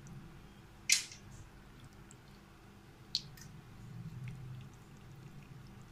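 Fingers sorting through wet raw beef pieces in a metal pan to pick out lemon seeds: quiet squelching, with two sharp clicks about a second in and about three seconds in, over a low steady hum.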